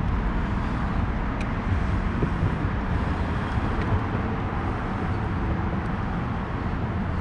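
Steady low rumble of road traffic, an even background hum with no sharp events apart from a faint tick about a second and a half in.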